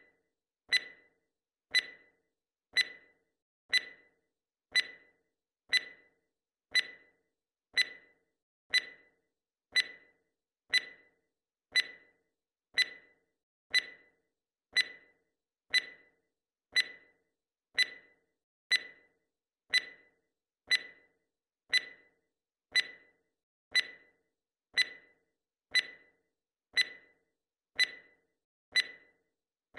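Clock-tick sound effect: one short, sharp tick every second in a steady rhythm, marking each second of the timer.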